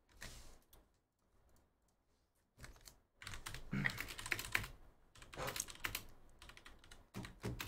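Typing on a computer keyboard: a few key clicks at the start, then a quick, dense run of clicks from about three seconds in.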